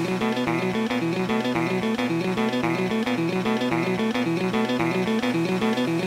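Background music: a guitar picking a quick, repeating pattern of notes.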